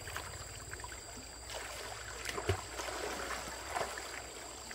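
Stream water running and splashing as people bathe and swim in it, with scattered small splashes and one sharper thump about halfway through.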